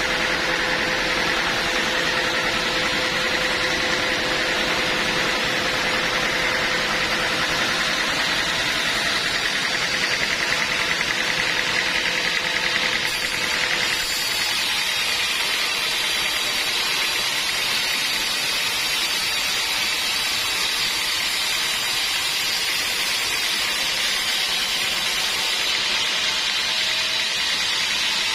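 Sawmill machinery running steadily, a continuous mechanical hum with a steady whine; its tone shifts about halfway through.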